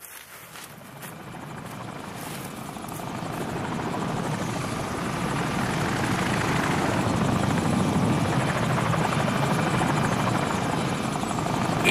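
Helicopter rotors and engine, growing louder over the first five seconds, then steady.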